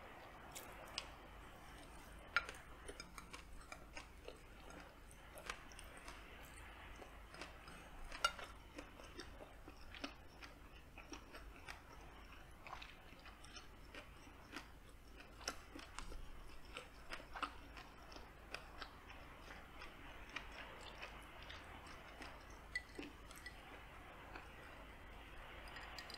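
Close-miked chewing of a mouthful of spicy smoked sausage and white rice, with many small, irregular mouth clicks.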